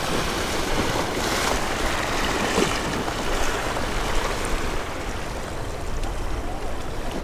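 Ocean surf washing and splashing over shoreline rocks, a steady rushing sound.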